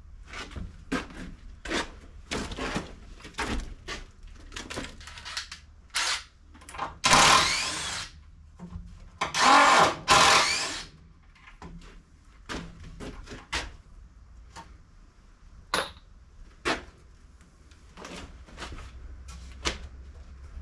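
Cordless drill running in two long runs a couple of seconds apart near the middle, driving screws into a wooden shelf frame. Many short knocks and clatters of wood and tools come before and after.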